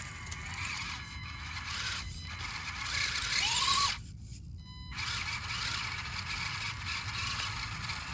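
Mostly 3D-printed SCX24 mini RC crawler driving, its small electric motor and plastic gears whining and scraping. It cuts off about four seconds in, then starts again a second later.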